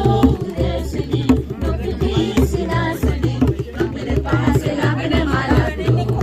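Music with singing over a steady bass beat.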